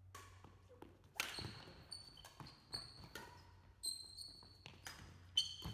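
Faint badminton rally on an indoor court: irregular sharp knocks of racket strikes and footfalls, with short high-pitched squeaks of court shoes on the floor.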